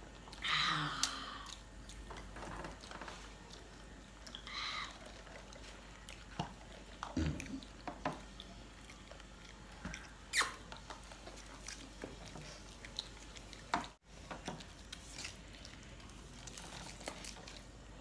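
People chewing french fries and making small mouth noises, with scattered light clicks and knocks from handling drink cups and food packaging.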